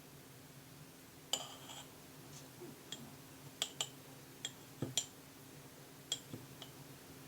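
Kitchen utensils and dishes clinking and tapping lightly, about a dozen irregular small knocks, over a faint steady hum.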